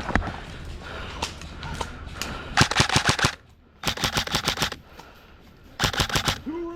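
Airsoft rifle firing three short full-auto bursts of rapid clicking shots, each burst lasting about half a second, with the bursts spread over the second half.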